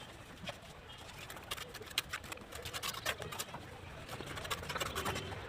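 Irregular light taps and clicks, many in quick succession, growing busier about halfway through.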